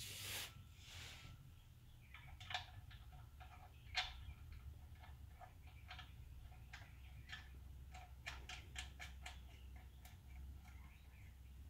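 Faint, irregular light clicks and ticks as a 2012 Infiniti QX56's oil drain plug is threaded back into the oil pan by hand, over a low steady rumble.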